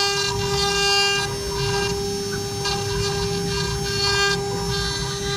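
CNC router spindle running at a steady high whine while a fine carving bit cuts a 3D relief into a wood board. A higher, ringing cutting whine swells and fades every second or so as the bit's load changes along the toolpath.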